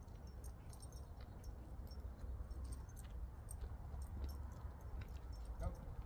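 Low wind rumble on the microphone with many scattered small clicks and jingles from a pack of dogs walking with their handler. A brief faint higher note comes about five and a half seconds in.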